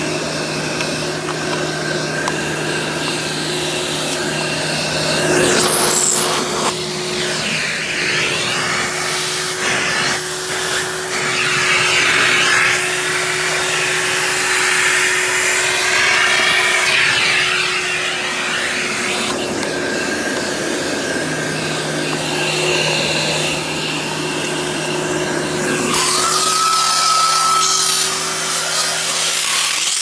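Simplicity 7350 upright vacuum's 12-amp two-stage motor running in tool mode, with suction drawn through the hose. A steady motor hum sits under a rush of air that changes in strength and tone several times, with a shift about 5 seconds in and another near the end.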